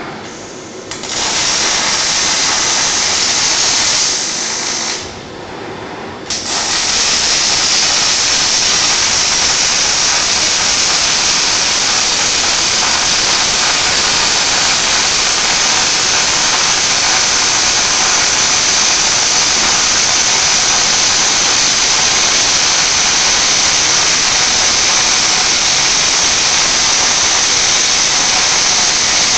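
Panasonic robotic arc welder striking its arc and welding with a steady hiss. It starts about a second in, drops out briefly around five seconds, then runs on without a break.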